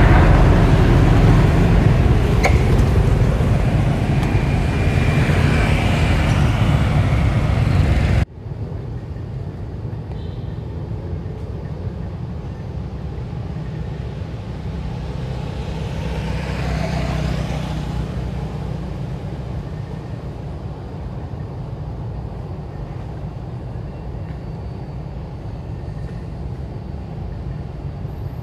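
Road traffic noise: a loud rumble that cuts off abruptly about eight seconds in, then a quieter steady low rumble with one vehicle swelling past about two-thirds of the way through.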